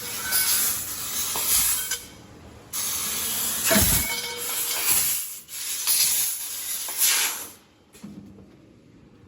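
1500 W fibre-laser tube cutter cutting, its assist gas hissing through the cutting head. The hiss stops briefly about two seconds in, runs again, and cuts off near the end.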